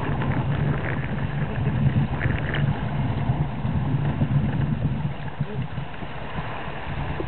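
Steady low wind rumble on the microphone, with water rushing and splashing along the hull of an open canoe moving under sail.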